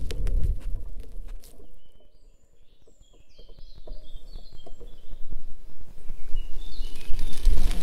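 Low wind rumble on the microphone fades away about two seconds in, and a songbird sings a phrase of short high notes into the quiet. A brief second phrase comes as the rumble builds back near the end.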